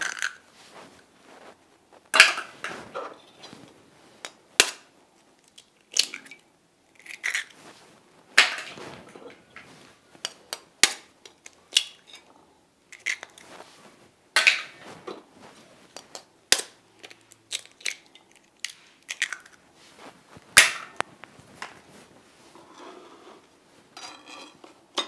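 Raw eggs being cracked on a steel kitchen knife blade over a ceramic plate: a long series of sharp, irregular taps and cracks of eggshell on metal, with the crunch of shells being pulled apart and the odd clink of the knife against the plate.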